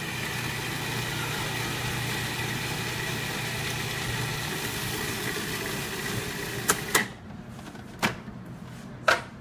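Countertop food processor motor running steadily with a constant whine, blending carrot-top and basil pesto while olive oil is drizzled in through the feed tube to emulsify it. The motor cuts off about seven seconds in, followed by a few sharp plastic clicks and knocks.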